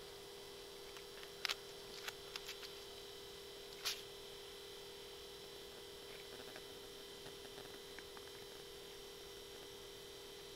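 Steady electronic hum made of two constant tones, one low and one high, with a few faint clicks in the first four seconds.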